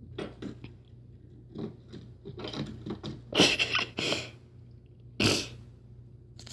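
A fidget spinner being batted and pushed around by a cat, making a string of irregular scrapes and clatters. The loudest come about three and a half seconds in and again just past five seconds.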